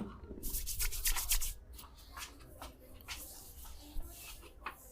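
Hands rubbing and tapping on skin and hair during a head massage: a quick run of brisk rustling strokes about half a second to a second and a half in, then scattered single soft taps.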